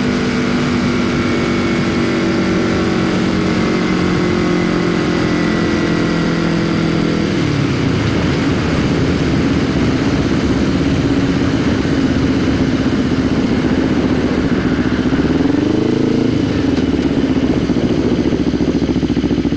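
Kawasaki Ninja 250R parallel-twin motorcycle engine running on the move over a steady rush of wind and road noise. About seven seconds in the engine note drops sharply as the bike slows, then holds lower with a brief rise of revs near the end.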